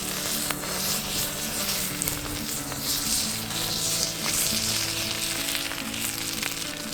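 Food frying, a steady sizzle with scattered small pops and crackles.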